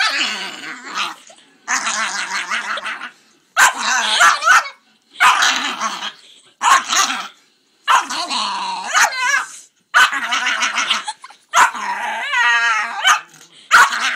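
A dog making a string of growly barking noises: about eight separate bursts, each up to a second or so long, with short pauses between.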